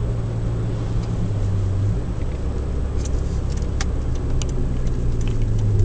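Saab 9000 driving, heard from inside the car: a steady low engine and road drone that dips in pitch about two seconds in and climbs back a second or so later. Light rattling clicks come in about three seconds in.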